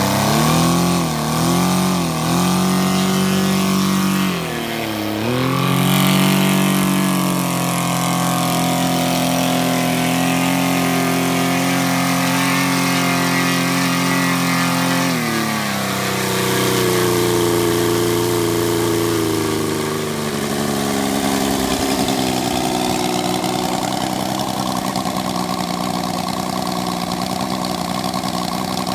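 Saito RD-450 four-stroke model aircraft engine, converted to spark ignition on petrol, running on its first run with a 24x10 wooden two-blade propeller. The throttle is blipped up and down over the first few seconds, then held at a steady high speed. It is throttled back in two steps and settles to idle about twenty seconds in.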